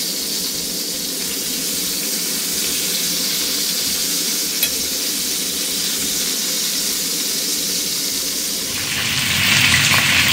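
Turkey pieces sizzling as they fry in oil in a pan, a steady hiss that grows louder near the end.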